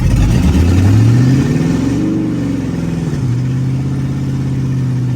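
Car engine revving up once and dropping back to a steady idle.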